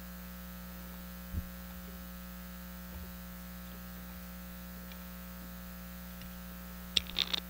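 Steady electrical mains hum with no speech, with one faint low thump about a second and a half in and a few sharp clicks and knocks near the end.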